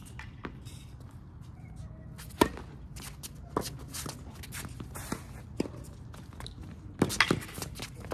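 Tennis rally: a string of sharp ball strikes and bounces with footsteps on the court, the loudest hit about two and a half seconds in and a quick cluster of hits near the end.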